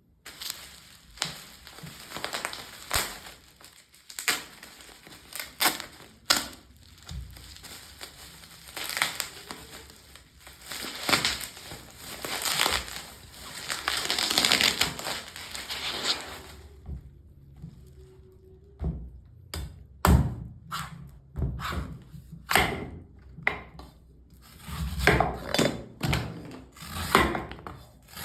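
A coconut being handled and cut with a blade: repeated scraping and rubbing strokes, then after about halfway sharper chops and knocks, some with a dull thump.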